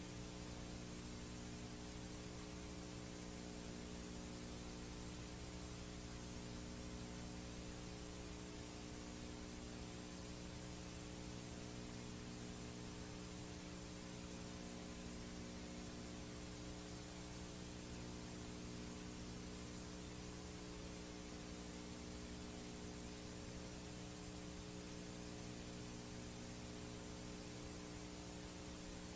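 VHS videotape playback noise: a steady hiss with a low electrical hum made of several steady tones, unchanging throughout.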